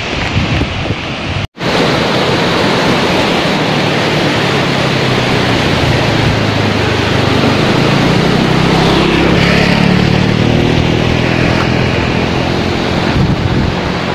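Wind buffeting the microphone throughout, with a brief cut-out about a second and a half in. A motor scooter's engine drones past in the middle, growing louder and then fading.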